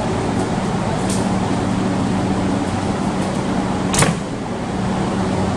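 A stationary Hankyu 8300-series electric train waits at an underground platform: its on-board equipment and air conditioning make a steady hum. A sharp click comes about four seconds in, with a fainter one about a second in.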